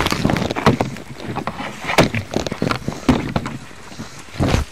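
A run of irregular knocks and clatters, close by, with no steady pattern.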